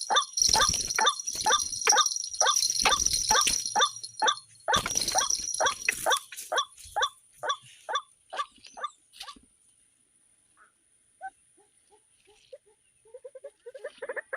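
White-breasted waterhen calling: a fast run of harsh, repeated 'kru-ak' notes, about three a second, that slows and fades out around nine seconds in. A few soft notes come back near the end. A steady high whine runs over the first half.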